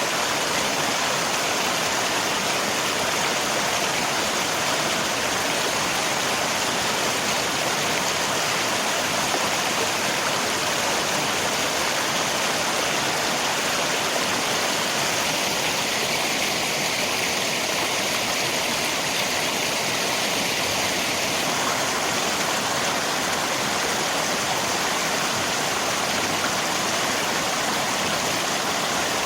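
River water rushing steadily, mixed with rain.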